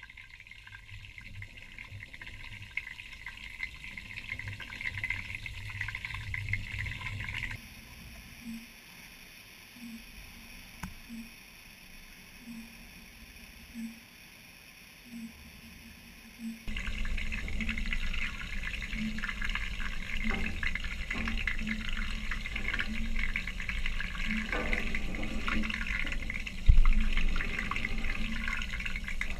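Water in a fish tank heard underwater: a steady bubbling, crackling wash with a low rumble. It drops to a quieter, thinner hiss for several seconds in the middle, and one sharp knock comes near the end.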